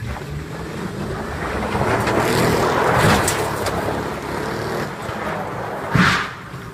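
Car engine revving hard as the car drifts on loose dirt, its spinning tyres throwing up dirt and gravel in a steady rushing noise that swells midway. A short, sudden loud burst comes near the end.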